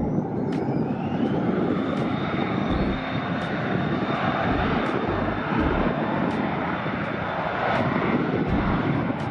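A Cessna Citation Latitude business jet's twin Pratt & Whitney PW306D turbofans at high power on the takeoff roll: a loud, steady rushing jet noise. Over it a thin whine rises in the first two seconds, then holds at a steady high pitch as the engines spool up.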